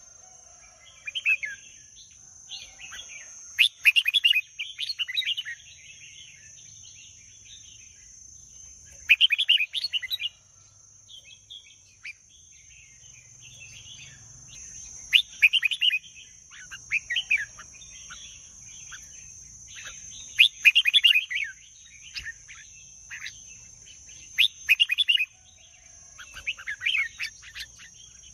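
Red-whiskered bulbul singing: short, bright chirping phrases repeated every few seconds with brief pauses between them.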